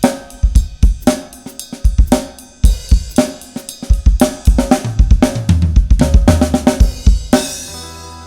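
Drum kit being played: a Pacific Drums 805 series kit with a Mapex snare and Sabian cymbals, a fast groove of kick, snare and hi-hat that gets busier toward the end. It closes on a cymbal crash about seven seconds in that rings out, over a quieter backing track.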